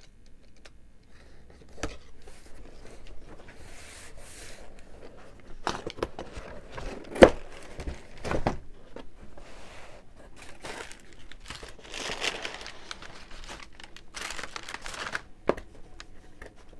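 A cardboard box being opened: a utility knife slitting the packing tape, then the lid coming off and crumpled kraft packing paper rustling and crinkling as it is pulled aside, with knocks of cardboard. A sharp knock a little past seven seconds in is the loudest sound.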